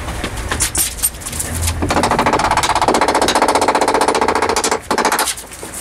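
A fast mechanical rattle, loud for about three seconds, with a second short burst near the end.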